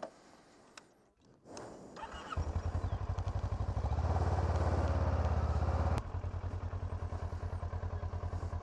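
Kawasaki Ninja 650R's parallel-twin engine running as the bike rides along a gravel road, a low, even pulsing that comes in about two seconds in. It is loudest in the middle and steps down suddenly about six seconds in.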